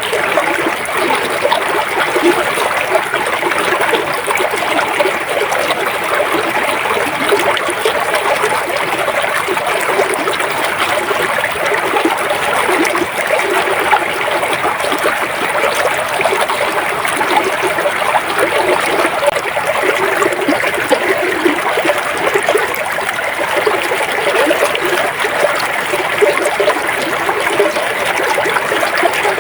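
River water flowing and trickling steadily over stones, a continuous burbling rush.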